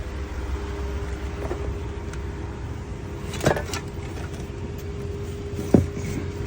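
A locksmith's inflatable air wedge being hand-pumped to open a locked car door: a few short squeaks and clicks from the pump, about three and a half and six seconds in, over a steady low hum.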